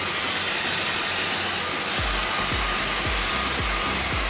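Dyson Airwrap styler with its round volumising brush attachment blowing air: a steady rush with a faint high whine, over background music with a steady beat.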